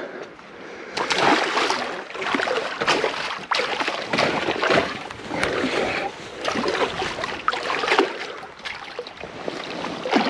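Hooked pike splashing in the shallows at the bank as it is played in on a spinning rod: repeated irregular splashes and sloshing.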